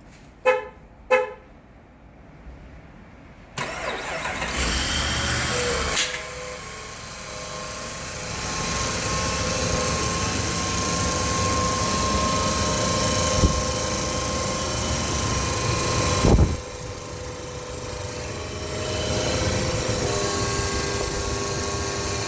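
Dodge Ram 1500's 5.7 Hemi V8 being remote-started: two short horn chirps, then the engine cranks and catches a few seconds in and runs with a loud, steady high whine from the automatic transmission. The owner suspects the torque converter or pump, having ruled out the starter. A sharp thump comes about sixteen seconds in.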